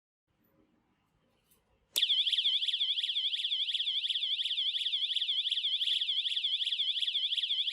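Built-in electronic siren of a Bekonec BEK-R10XXSR rotating warning light, starting abruptly about two seconds in and sounding a steady, high-pitched warbling alarm tone whose pitch swings up and down about three times a second.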